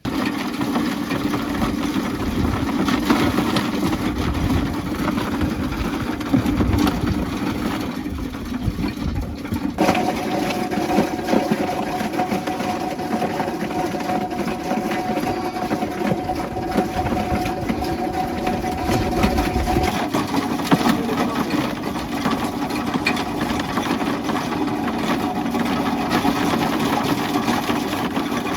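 A machine's motor running steadily. A steady higher tone joins about a third of the way in and stops about two-thirds through.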